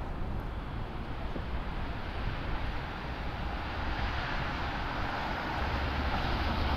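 Steady rushing noise of a passing vehicle, growing louder over the last few seconds.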